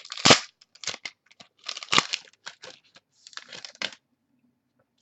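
Foil wrapper of a football trading card pack being torn open and crinkled: a run of sharp crackling snaps that stop about four seconds in.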